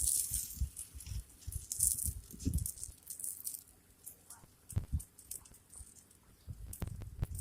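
A large mass of burning matches crackling and hissing, with irregular sharp pops and short flaring hisses, over scattered low thumps.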